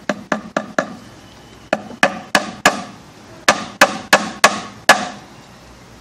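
Hammer tapping in a cap-headed nail that serves as the pivot of a metal-strip beehive entrance gate: about a dozen sharp strikes in three quick runs, each with a short metallic ring.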